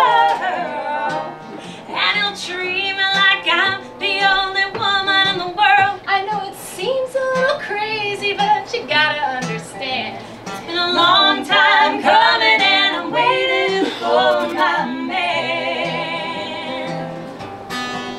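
A song with a woman singing over guitar.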